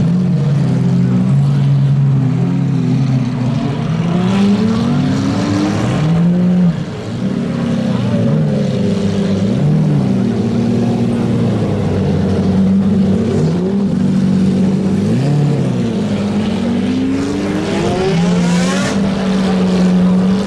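Lamborghini supercar engines idling and being revved in repeated short blips, the pitch climbing and dropping again every couple of seconds as the cars pull away, with a longer rising rev near the end.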